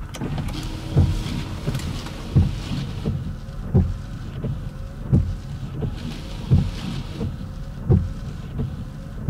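Windshield wipers of a 2005 BMW X5 E53 sweeping at a steady pace: a low thump about every second and a half as the blades turn, over the faint whine of the wiper motor.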